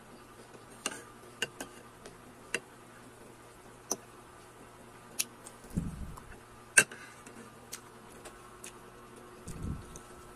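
Close-miked chewing of a fried root-crop patty: scattered sharp mouth clicks and smacks, with two dull low thumps, one about six seconds in and one near the end.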